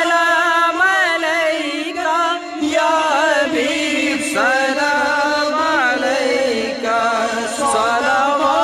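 Male voices singing a naat, a devotional song in praise of the Prophet Muhammad, in long wavering melodic lines.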